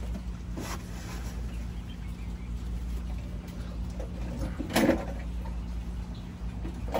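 A person shifting about inside a cramped boat locker, with one loud knock about five seconds in and fainter knocks near the start, over a steady low hum.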